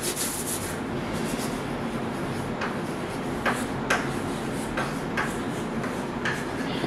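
Low room noise with a handful of light, scattered clicks or taps, spread unevenly over a few seconds.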